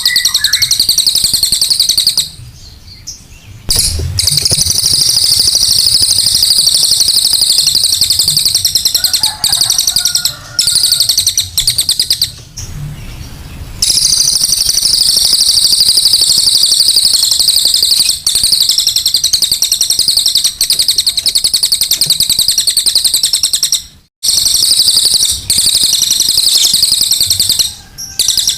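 Cililin bird giving its harsh, rough call as a fast, continuous high-pitched chatter, with short breaks about two seconds in and about twelve seconds in.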